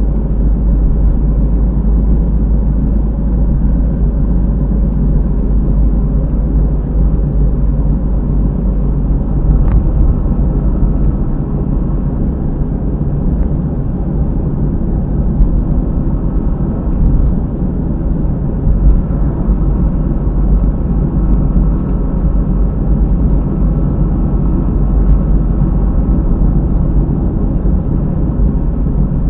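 Inside a moving Honda car: steady road and tyre rumble with a drone from near a rear wheel, a noise the owner takes for a failing hub bearing.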